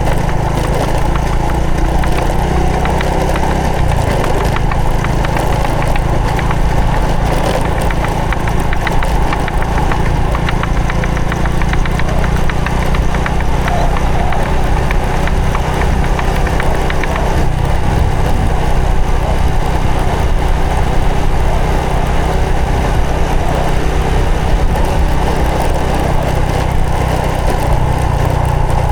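Honda Supra X 125 FI underbone motorcycle's single-cylinder four-stroke engine running steadily under way, its note shifting about four seconds in and again near the end.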